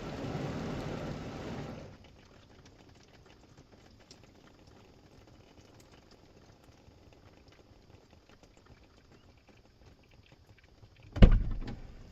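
Heavy rain drumming steadily on the car's body, heard from inside the cabin, cutting off abruptly about two seconds in. Faint pattering and ticking of drops follows, then a single loud, deep thump near the end.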